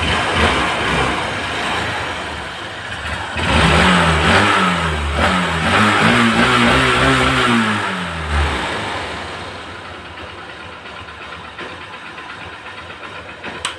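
Hero Honda CBZ single-cylinder four-stroke engine, freshly rebuilt with new valves and a new piston and barrel kit, running. It is revved several times in a row, rising and falling in pitch, about a third of the way in, then settles to a steady idle. It runs smoothly, without the clatter that worn valves had caused.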